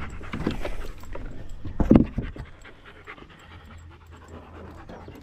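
Dog panting, loud for the first two and a half seconds, then softer.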